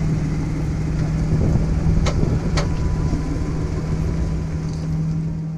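Lifted Jeep Wrangler's engine running steadily at crawling speed on a rock trail, a low, even drone, with two sharp clicks about two seconds in.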